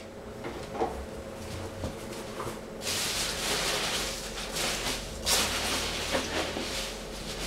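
Foam packing peanuts rustling as hands dig through a shipping box: a few light knocks at first, then two longer stretches of rustling from about three seconds in.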